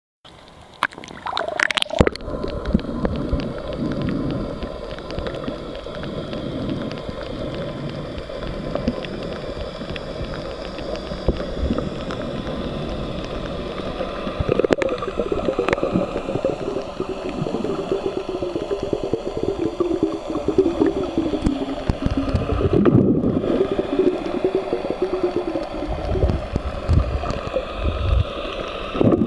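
Water gurgling and sloshing close to the microphone, as heard by a camera during snorkeling, with a wavering low tone through the middle.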